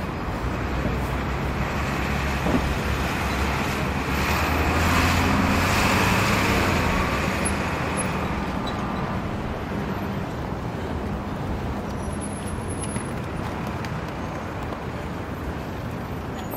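Busy Manhattan intersection traffic: a steady din of cars, trucks and buses. A vehicle passes close, swelling loudest about five to six seconds in and then fading back into the din. A short knock comes about two and a half seconds in.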